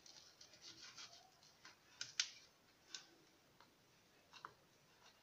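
Faint clicks and scrapes of a knife blade scoring a sheet of still-warm peanut chikki on a steel plate, the blade catching against the metal. There are a handful of short ticks, the loudest about two seconds in.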